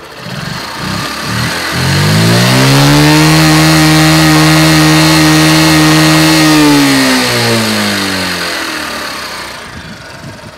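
Fuel-injected 50cc Honda Cub's single-cylinder four-stroke engine idling, then revved up with the throttle, held at high revs for about five seconds and let fall back to idle.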